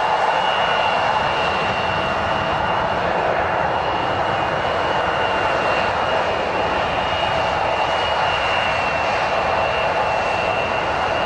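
Jet airliner's engines running steadily, a constant rushing noise with a high, steady whine over it.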